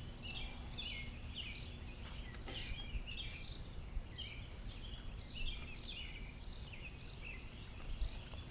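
Songbirds chirping repeatedly in short high notes, over a low steady outdoor background rumble.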